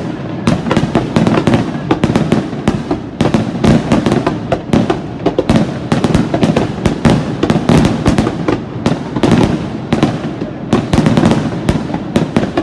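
Aerial fireworks shells bursting in quick succession: many sharp bangs, several a second, over a continuous rumble of overlapping reports.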